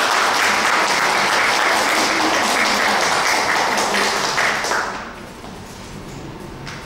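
Audience applauding steadily, dying away about five seconds in.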